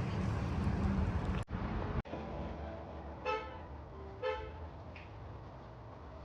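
Two short car horn toots about a second apart, over a steady low rumble of traffic.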